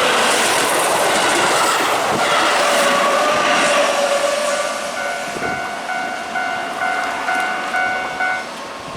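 Keihan Main Line electric train passing close by over a level crossing, wheels clattering on the rail joints, its noise fading after about four seconds. From about five seconds in, the crossing's warning bell sounds a repeating electronic tone about twice a second, stopping shortly before the end.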